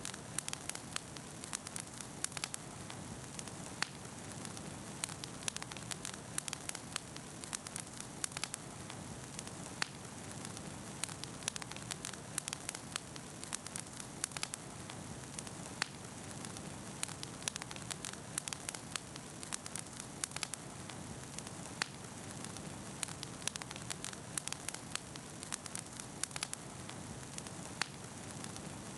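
Bonfire crackling: frequent irregular sharp pops and snaps over a steady low rush of the flames.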